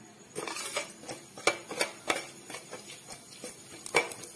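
A metal spoon clinking and scraping against a stainless steel pan while stirring urad dal in oil: irregular sharp clicks, a few louder knocks among them.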